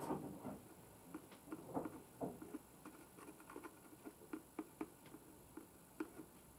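Faint, irregular small clicks, taps and scrapes as a screwdriver tip spreads silicone grease onto the plastic visor-mechanism notch of a flip-up motorcycle helmet, with handling noise from the helmet and grease tube.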